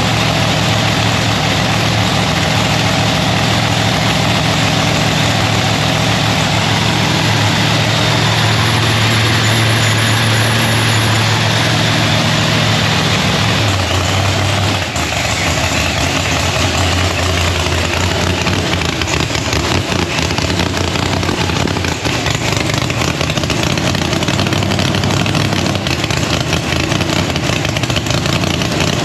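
Chevy Nova drag car's Procharger-supercharged V8 idling loudly. About 14 seconds in, the idle note drops to a lower pitch.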